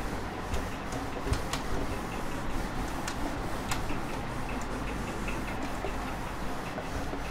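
Cloth duster rubbing across a whiteboard as it is wiped clean, with scattered light clicks and knocks.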